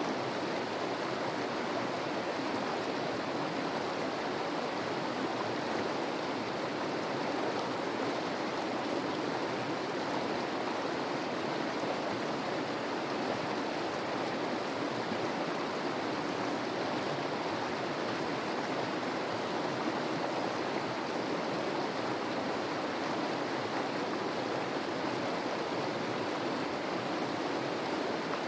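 Mountain river water rushing over rocks: a steady, even sound of flowing water that does not change.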